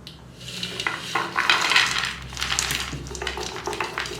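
Cooked popcorn rattling and scraping against metal and a dish as it is handled out of an electric kettle: a dense run of small clicks and rustles, loudest about halfway through.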